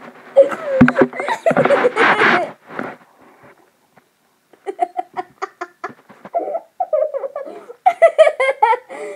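Children laughing hard in quick pulsing bursts, in two bouts with a short pause between them. A bump of the tablet being handled about a second in.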